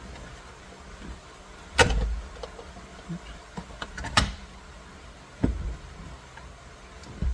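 A new steering wheel being worked onto the splined steering column shaft: four sharp knocks and clunks spread a second or two apart, with lighter clicks between them.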